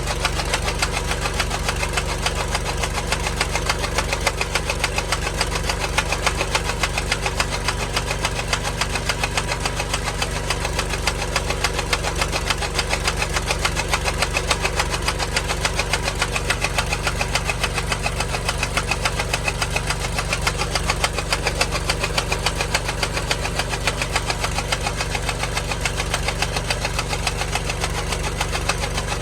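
An engine running steadily at an even speed, with a rapid, regular knock that does not change.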